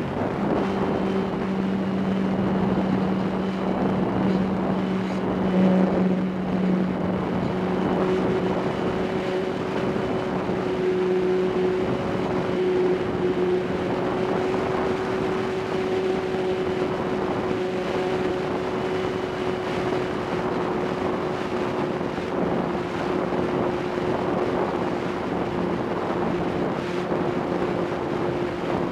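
RC plane's motor and propeller running steadily in flight, a constant droning tone mixed with wind rushing over the onboard camera's microphone.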